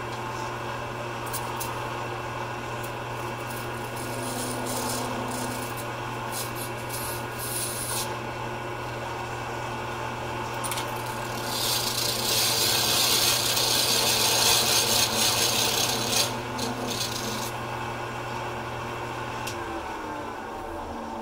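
A skew chisel cutting an acrylic pen blank spinning on a wood lathe: a continuous scraping rasp over the lathe motor's steady hum. The cut grows louder and hissier for a few seconds in the middle, and the motor hum stops near the end.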